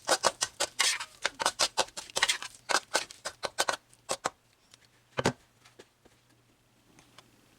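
Rapid clicking and tapping of a cooking utensil against a pan, thinning out after about four seconds, with one louder knock about five seconds in.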